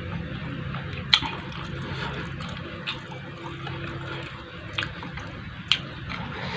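Close-up eating sounds: a person chewing and smacking on food, with a few sharp clicks or crunches spread through, over a steady low hum.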